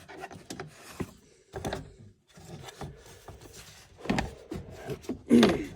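Irregular clicks, knocks and rubbing as the dash trim and wiring connectors around a UTV's instrument cluster are handled, with two louder knocks about four seconds in and near the end.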